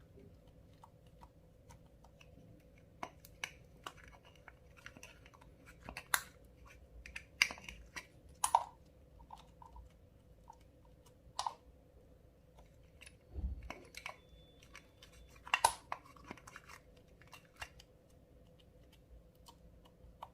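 Clear slime being mixed and squeezed by hand, giving scattered sticky clicks and small pops, a few much louder than the rest, and a brief low thump about halfway through.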